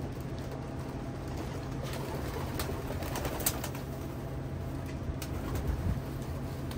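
Racing pigeons cooing in their loft over a steady low hum, with a few sharp taps or clicks in the middle of the stretch.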